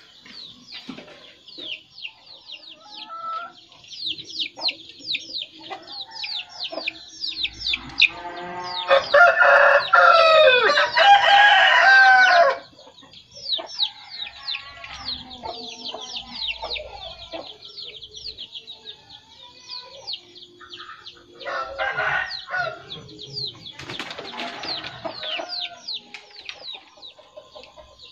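A rooster crows once, a long, loud crow a third of the way in, over continuous rapid high chirping from small birds. Shorter, fainter chicken calls come later on.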